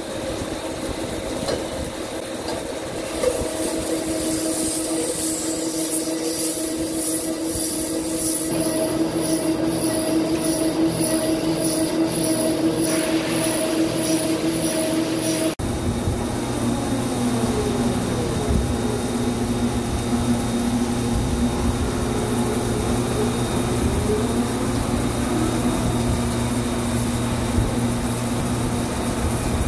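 CNC vertical lathe turning a large forged steel ring: the tool cutting steel under flowing coolant, heard as a steady machine noise with several held tones and a high hiss. The sound changes abruptly about halfway through.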